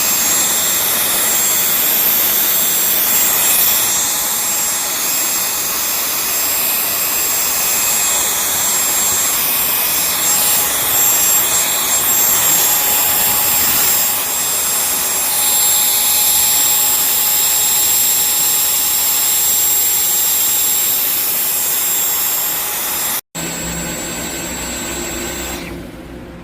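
Dyson V12 Detect Slim cordless stick vacuum running: a steady motor whine with a high, thin tone over loud airflow hiss. It breaks off abruptly near the end, then runs on more quietly.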